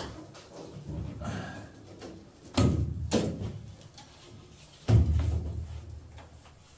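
Windshield glass being pulled out of its rubber seal in a bare car body: rubbing and handling noises with two heavy thuds, about two and a half seconds in and again about five seconds in, as the glass and seal knock against the sheet-metal frame.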